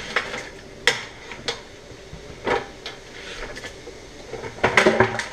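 Live crawfish being tipped out of a plastic bucket into a pot: scattered clattering knocks of shells and bucket against the pot, with a denser burst of clatter near the end.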